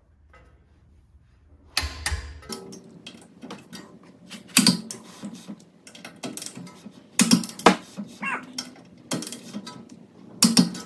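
Wrench on titanium wheel studs being tightened into a car's hub: irregular sharp metallic clicks and clanks with ratcheting, starting about two seconds in.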